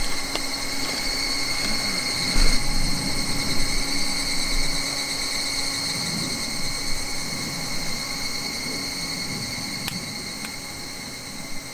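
Steady summer insect chorus, a continuous high-pitched drone with a lower steady hum beneath it, fading near the end.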